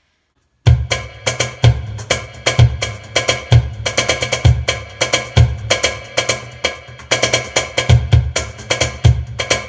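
Cajon played in a steady groove, its strokes triggering the Roland EC10M's electronic Darbuka kit sounds through the amplifier. Deep bass notes come about once a second with quicker, brighter strokes between. The playing starts after a moment of silence at the very beginning.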